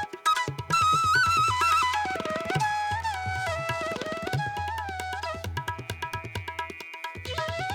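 Background instrumental music: a sliding melodic line over fast, busy percussion and a steady low bass that drops out briefly near the end.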